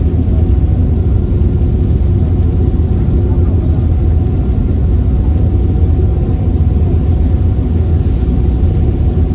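Steady low drone of a passenger ferry's engine, with a few steady tones riding above the rumble.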